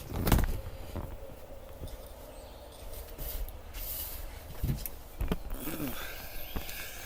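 Handling noise on the camera's microphone: a few knocks and bumps, the loudest just after the start and more about a second in and near five seconds, over a low outdoor rumble.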